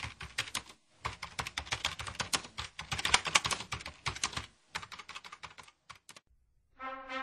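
Rapid keyboard typing, a fast run of key clicks that thins to scattered keystrokes about four and a half seconds in and stops about six seconds in. Music with held notes starts near the end.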